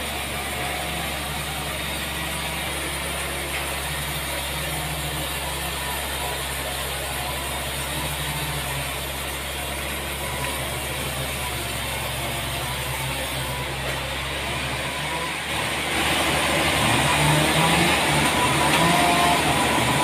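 Large band sawmill running steadily without cutting, a low machine hum; about sixteen seconds in it grows louder and rougher, its pitch wavering.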